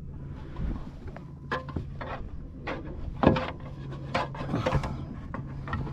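Scattered knocks, clunks and rubbing of gear and a fish being handled aboard a plastic fishing kayak, with one louder knock past the middle.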